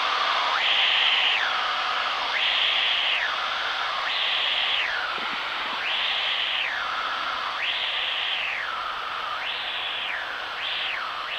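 Light-aircraft cabin noise heard through the intercom feed: a steady hiss that sweeps up and down in pitch about every second and a half, with the sweeps coming faster near the end.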